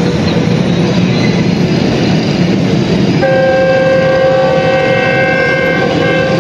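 Diesel locomotive of the Karakoram Express, a GE U40, sounding its horn in one long blast starting about three seconds in. Under the horn is the steady rumble of the running train.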